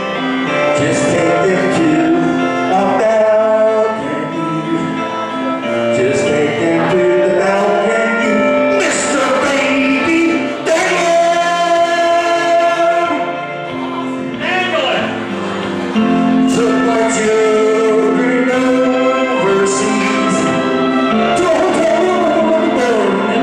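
A man singing into a microphone through the PA over instrumental music.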